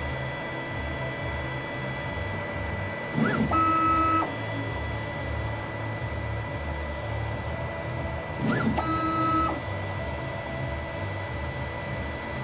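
Stepper motors of a Promega prototype 3D printer working through its multi-point infrared bed-leveling probe: a low, pulsing stepping buzz as the axes make short moves. Twice, about three and eight and a half seconds in, a louder motor whine rises in pitch and then holds a steady tone for under a second during a quicker travel move, with a faint constant high tone underneath.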